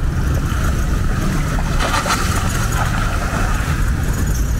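Cars running slowly through muddy floodwater, engines at low revs and water churning around the tyres, over a steady low rumble.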